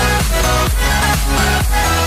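Electronic dance music with a steady thumping kick drum, about two beats a second.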